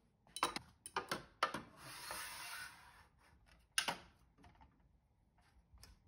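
Kitchen countertop cleaning sounds: several sharp knocks and taps of a wooden-handled brush and glass bottles on the counter, then a rasping scrub lasting about a second and a half. One more sharp knock comes a little before four seconds, with faint taps near the end as the bottles are set back into their plastic caddy.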